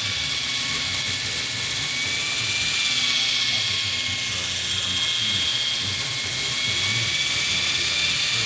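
Miniature electric RC helicopter's motor and rotors running with a steady high-pitched whine, the pitch drifting slightly up and down as the throttle changes.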